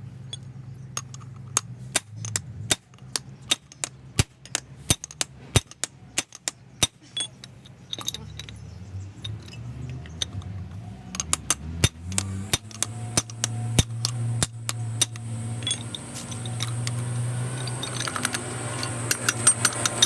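Metal tools clinking and knocking on metal parts in a run of sharp, irregular strikes, about one or two a second, over a steady low hum.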